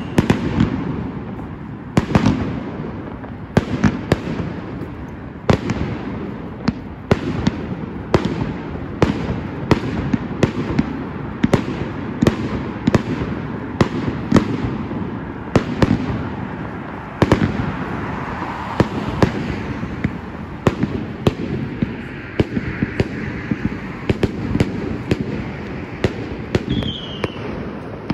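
Fireworks going off in a continuous barrage: sharp bangs about one or two a second over a steady crackle. A short falling whistle sounds near the end.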